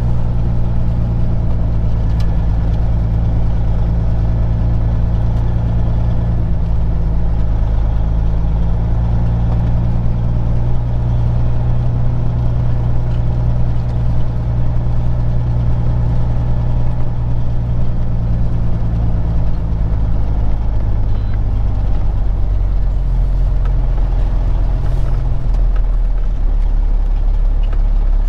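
Peterbilt 379 semi truck's diesel engine running steadily at low speed, heard from inside the cab, its drone stepping to a new pitch a few times as the revs change.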